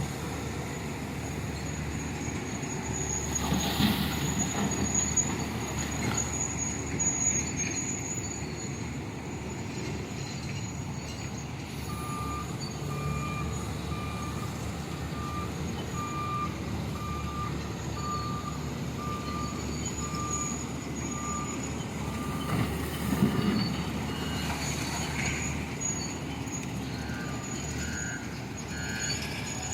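Heavy diesel machinery running steadily, an excavator and a dump truck working. Midway a reversing alarm beeps at one pitch, a little more than once a second, for about ten seconds. Two brief louder bursts of noise come, one early and one past the middle.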